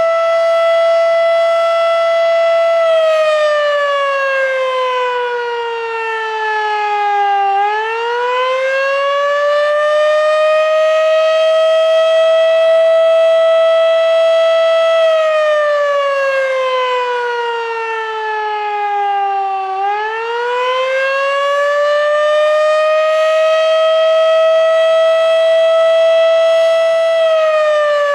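Federal Sign & Signal Model 3 outdoor warning siren sounding the attack signal: a loud tone that holds at its top pitch for a few seconds, falls over about four seconds, then climbs back up and holds again. Two full rise-and-fall cycles, with another fall starting near the end.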